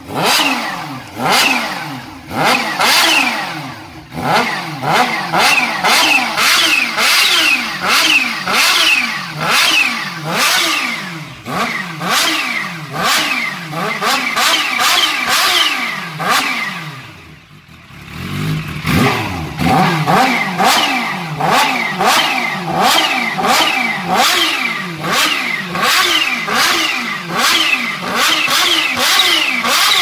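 Supercharged Kawasaki Ninja H2 inline-four revved in rapid repeated throttle blips while standing. A high supercharger whistle falls away as each rev drops. The revving pauses briefly about two-thirds of the way through, then picks up again.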